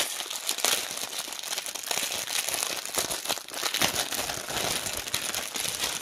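Plastic packaging of diamond painting drills crinkling as the bag is opened and the small bags of drills inside are handled, a continuous run of crackles.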